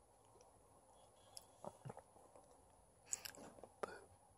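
Near silence, with a few faint soft clicks and ticks in two small clusters, one in the middle and one near the end.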